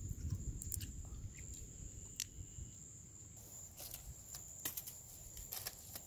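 Aluminium foil packet crinkling and clicking as it is handled and lifted out of campfire coals, after a few scattered clicks earlier on. A steady high insect trill runs behind.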